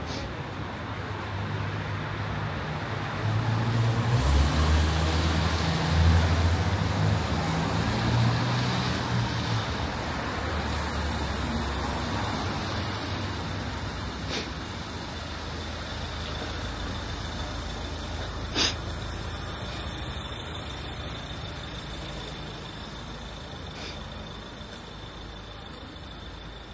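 Street traffic with a heavy vehicle's engine rumbling past close by, loudest a few seconds in and then fading away. A single sharp click stands out about two-thirds of the way through.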